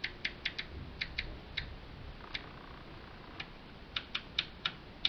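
Rotary selector switch on a Marantz 3650 preamp clicking through its detents as the knob is turned back and forth by hand, about a dozen sharp clicks in uneven bunches. The switch is being worked to spread freshly sprayed contact cleaner over corroded contacts that make the audio crackle.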